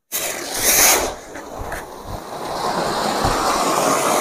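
Anar (flower-pot) firework fountain spraying sparks with a rushing hiss: a louder surge as it catches in the first second, then a steady hiss that builds gradually.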